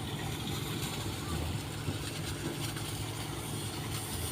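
A moored boat's diesel engine running steadily on a test run during repair, a low even hum.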